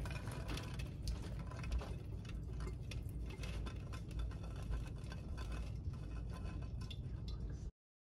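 Cooked black beans tumbling out of a stainless steel pot into a wire-mesh strainer: a run of small pattering clicks and clinks with scrapes of the pot and the last of the cooking water draining. It cuts off suddenly near the end.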